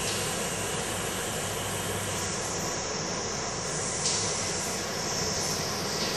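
Water running from a sink tap, a steady rushing hiss whose tone shifts slightly a couple of times as the stream or the hands in it move.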